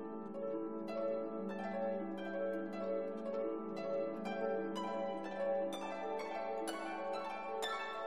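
Background music: a slow melody of plucked notes over a held low note, with no stream sound to be heard.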